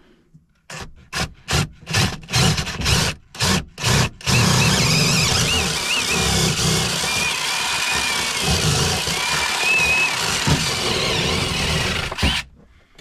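Power drill drilling holes: a run of short trigger bursts, then about eight seconds of steady drilling with the motor's whine wavering under load, stopping abruptly near the end.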